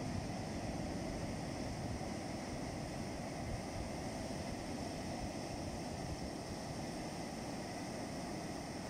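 Baltic Sea surf breaking and washing up a sandy beach: a steady, unbroken wash of noise.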